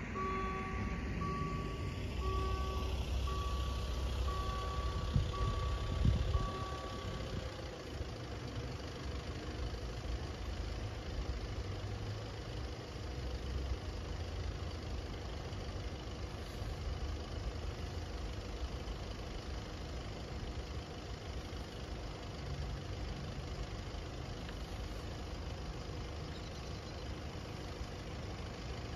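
Level crossing warning bells ringing in an even repeating pattern, about one and a half rings a second, while the barriers lower; they stop about seven and a half seconds in. Two knocks come about five and six seconds in, and a low steady hum of a waiting car's idling engine runs underneath.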